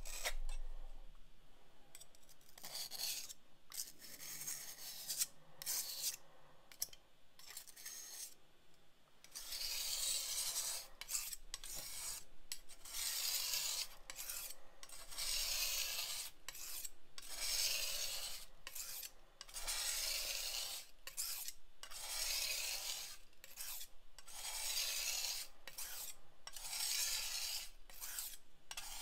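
Glass muller grinding azurite pigment in gum arabic on a glass slab: a gritty rasp from the coarse mineral particles being ground finer. The strokes are quieter and broken for the first several seconds, then come steadily, about one rasp every second and a half.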